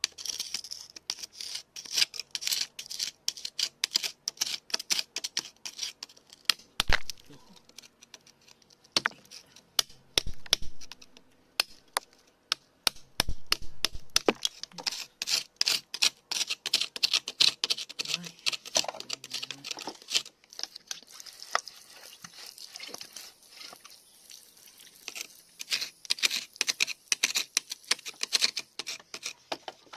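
Dense, close scratching and clicking of small hand tools picking and scraping through crumbly soil and stones, with a few heavier knocks.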